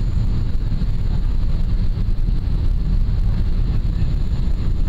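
Boeing 777-200 cabin noise on approach: the steady low rumble of the jet engines and rushing air, heard from a window seat.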